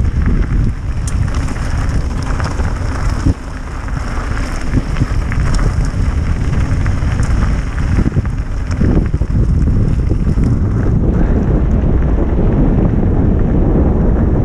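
Wind rushing over the microphone of a bicycle descending fast, with the tyres rumbling and crackling over loose gravel; the crackle is busiest in the first half, and the rush grows steadier after about nine seconds.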